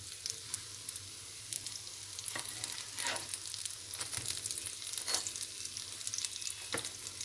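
Breaded potato-and-pea kebabs shallow-frying in hot oil: a steady sizzle with a few sharp crackles, as a slotted spatula turns them over in the pan.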